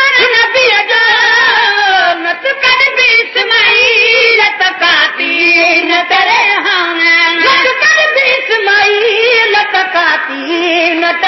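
Sindhi naat, a devotional song in praise of the Prophet, sung in a high voice with long held notes that waver and turn in ornaments.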